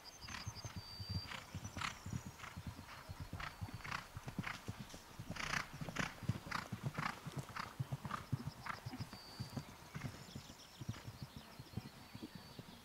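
A horse galloping on grass turf, its hoofbeats thudding in a rapid, steady rhythm. The beats are loudest about halfway through as it passes close by.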